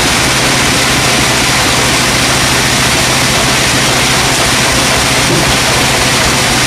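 Sawmill machinery running steadily: a constant motor hum under an even, loud noise.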